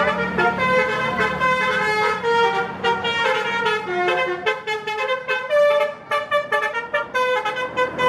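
Bus 'telolet' basuri multi-tone musical horn playing a tune: a string of held horn notes stepping in pitch, then a fast run of short toots in the second half.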